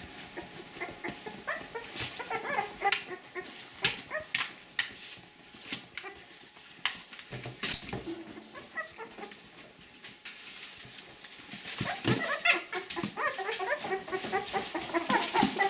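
Young puppies whimpering and squeaking in short high cries that come thicker and more often toward the end, with scratchy clicks and rustles in between.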